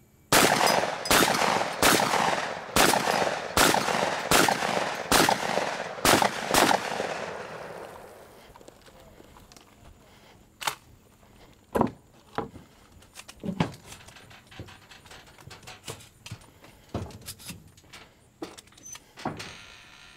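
Rifle shots fired in quick succession, about nine of them a little under a second apart, each followed by a long echo. After that come fainter scattered knocks and clicks.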